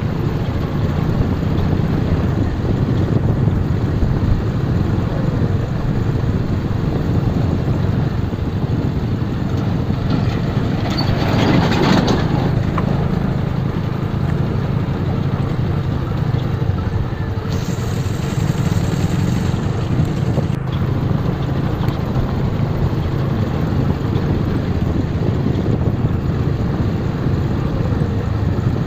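Motorcycle engine running steadily at low road speed on a rough dirt road, with a brief louder rush about twelve seconds in.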